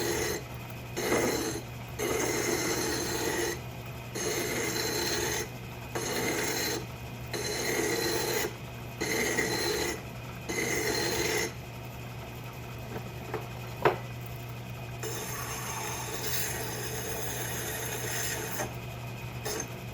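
Hand file stroking against a part turning in a metal lathe, about one rasping stroke every second and a half over the first half. Then a quieter, more even stretch with one sharp click about 14 seconds in, over a steady low hum.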